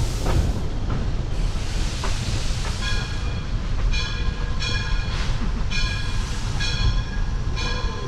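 Steam train running with a steady rumble. From about three seconds in, a bell-like ringing repeats about once a second.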